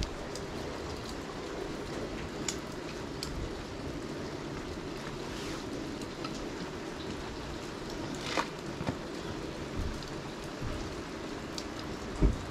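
Steady rain falling, with scattered close drips ticking and a loud low thump just before the end.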